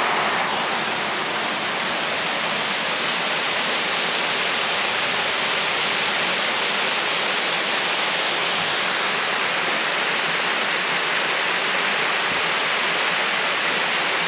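Jacobs Falls rushing steadily: a constant hiss of falling water with no change in level.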